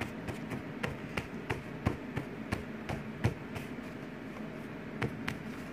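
A quick series of light taps or knocks, about three a second, over a steady background hiss; the tapping thins out about four seconds in, with two more taps near the end.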